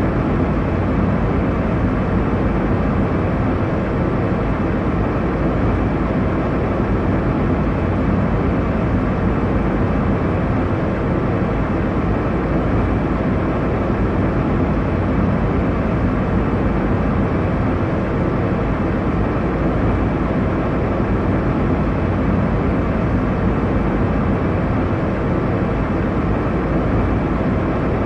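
Airliner cabin noise in flight: a steady, even rush of engine and air noise, strongest in the low range with a faint steady hum, unchanging throughout.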